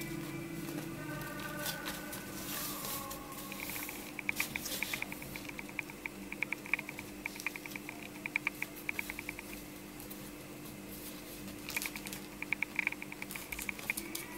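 A sheet of paper being folded and creased by hand, with rustling and runs of quick light taps and rubs as the folds are pressed flat. Soft background music runs under it.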